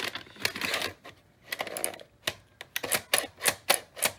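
Panasonic NV-870 VCR's tape mechanism clacking, a run of sharp clicks about three to four a second starting about a second and a half in, after some rustling. The repeated clacking is a glitch that happens sometimes with this machine.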